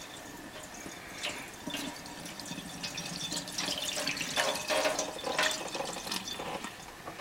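Water being poured in an uneven stream, splashing and dripping, heaviest in the middle.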